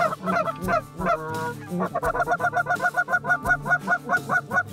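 Canada geese honking in flight. The calls are irregular at first, then from about two seconds in come as a rapid even run of about six honks a second.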